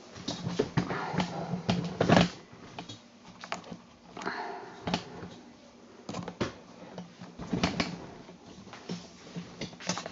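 Camera handling noise as the camera is carried and fitted back onto its tripod: irregular clicks and knocks, loudest about two seconds in and again near eight seconds, over a low steady hum.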